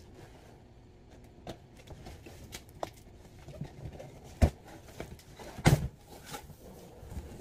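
Cardboard shipping box being handled and worked open by hand: scattered taps and scrapes on the cardboard, with two sharp knocks about four and a half and nearly six seconds in.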